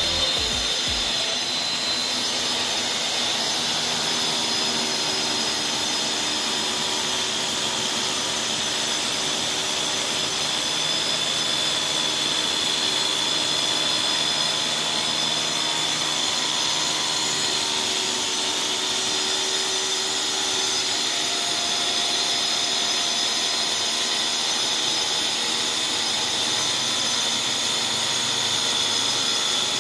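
LongDe D7-1200 electric tile cutter's motor running with a steady high whine as its blade cuts along through a floor tile.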